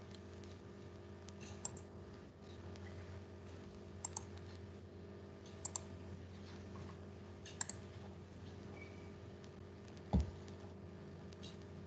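Scattered clicks of a computer mouse, several in quick pairs, every couple of seconds over a steady low electrical hum. A single dull thump about ten seconds in is the loudest sound.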